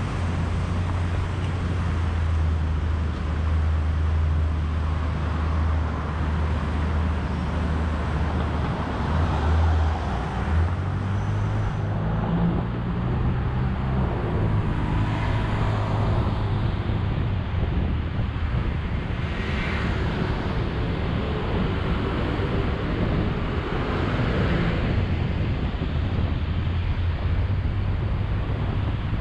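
Road traffic: a steady low rumble of vehicles, with a few vehicles passing more loudly in the second half.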